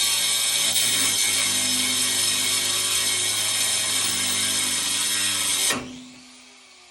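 A power tool running steadily at full speed for about six seconds, then switched off near the end and winding down.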